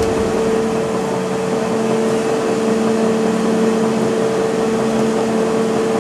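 Chairlift drive machinery running with a steady hum and a constant whine.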